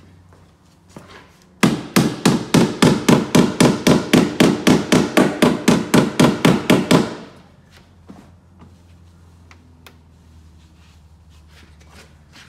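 A rapid, even run of hammer blows on the Peugeot 208's steel sill, about four or five a second, starting about a second and a half in and stopping some five seconds later.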